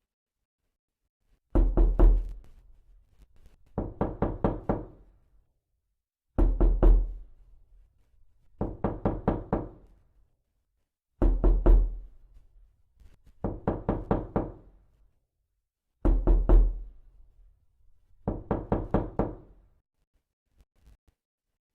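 Knocking in a repeating loop: a loud run of about five quick knocks, then a softer run of about five, the pair recurring about every five seconds, four times over.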